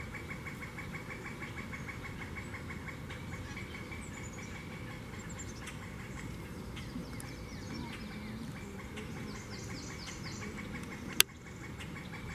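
Swamp ambience: a steady, fast pulsing chirp from a calling creature, with a few descending trills from a bird higher up. About eleven seconds in comes a single sharp snap, the loudest sound, after which the pulsing stops for a moment.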